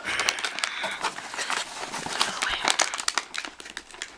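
Packaging crinkling and rustling as a treat bag is handled, a dense run of quick, irregular crackles.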